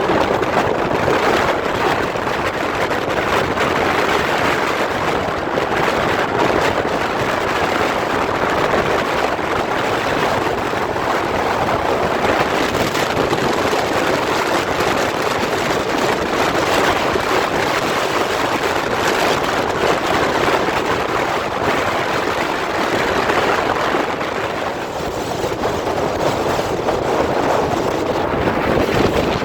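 Strong wind blowing hard against the microphone, a loud steady rush that eases slightly near the end.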